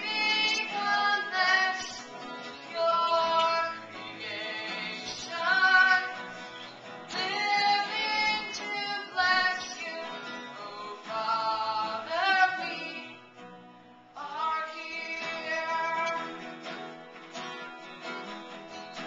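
A female voice singing a melody with guitar accompaniment, the singing pausing briefly about two-thirds of the way through.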